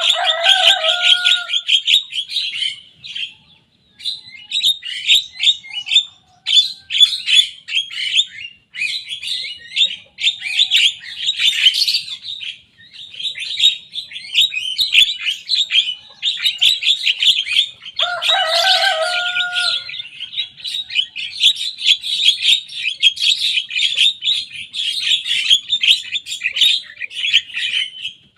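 Young Javan myna singing loudly in long runs of rapid, chattering notes broken by short pauses. At the start and again about eighteen seconds in, a lower, harsher call sounds under the chatter.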